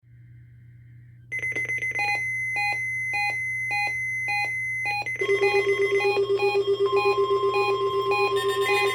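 Electronic alert alarms of NOAA weather radio receivers sounding for a required weekly test. A faint high tone comes first. About a second in, a loud beep pattern starts, pulsing about twice a second. About halfway through, a second, faster-pulsing alarm joins it, then a steady tone, all layered together.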